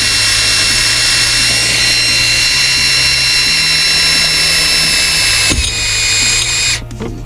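Power drill running steadily as it drives an extra screw into a thin metal bracket. The motor's whine holds an even pitch for about five seconds, then winds down and stops near the end.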